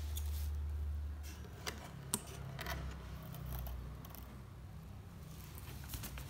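Handling noise of a midrange speaker driver being lifted out of its loudspeaker cabinet by hand: a low rumble with a few light clicks and taps, the sharpest about two seconds in.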